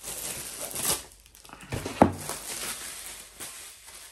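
Packaging rustling and crinkling as a diamond painting kit is handled, with one sharp knock about two seconds in.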